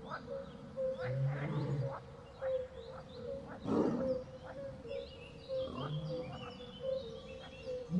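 Low big-cat growls, one about a second in and a shorter one near six seconds, over a night jungle ambience of steady, regularly repeated chirping, with a short rustling burst around four seconds.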